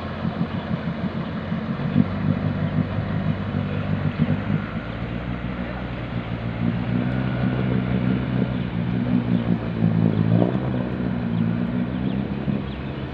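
An engine running steadily, its pitch stepping up about two seconds in and shifting again around ten seconds in.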